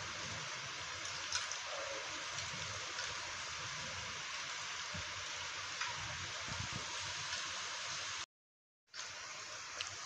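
Steady hiss of background noise with a few faint clicks. The sound cuts out completely for about half a second near the end.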